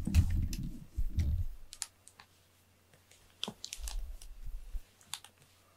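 Muffled low bumping and rubbing as a cat's body brushes against the camera microphone, followed by a few scattered light clicks.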